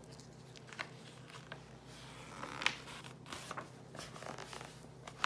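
Faint paper rustling, with a few light ticks and scrapes, as the pages of a picture book are turned by hand.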